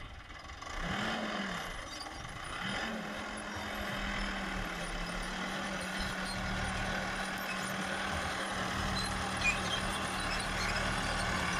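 Tractor engine running steadily under load while pulling a mounted six-row maize planter, with a brief rise and fall in revs about a second in. It grows louder as the tractor approaches.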